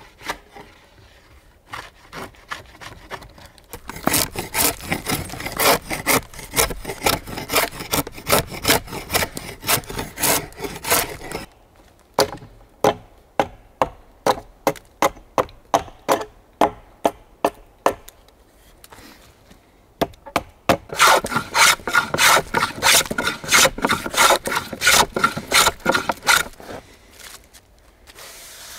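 Drawknife shaving bark and wood from the edge of a hewn log beam. Quick pulled scraping strokes, about two to three a second, come in three runs with short pauses between.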